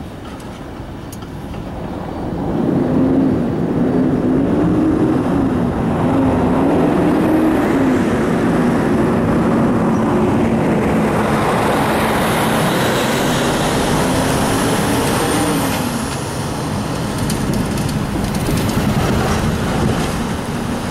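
Road traffic: car and box-truck engines and tyres on the road, swelling about three seconds in and then holding steady, with a wavering engine hum.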